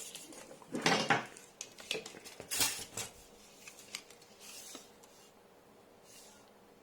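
Clinking and rattling of metal being handled while a welding cable is measured, most likely a tape measure and the cable's fittings. The sounds come in a few short bunches in the first three seconds, then thin out into a few faint ticks.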